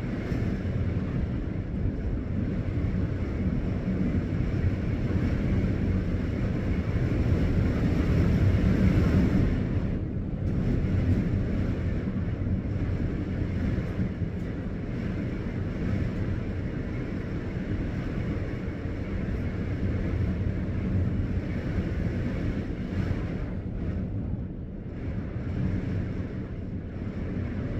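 Strong gusty wind buffeting the phone's microphone: a low, unpitched rushing rumble that swells and eases, strongest about eight to nine seconds in.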